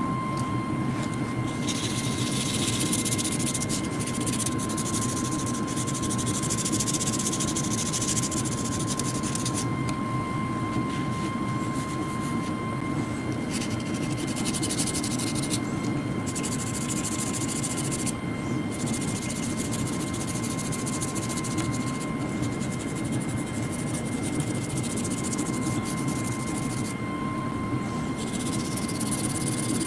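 A sanding pad rubbed by hand over a painted air compressor housing, scratching in spells of a few seconds at a time. Under it runs a loud, steady machine drone with a thin, high, steady whine.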